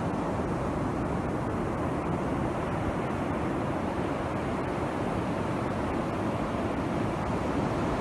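Steady sea surf washing on a beach, mixed with wind on the microphone.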